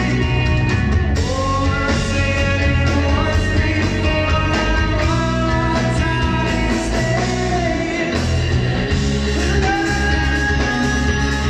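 Indie-pop band playing live through a venue PA: electric guitars, bass guitar and drum kit with a sung vocal line, heard from among the audience.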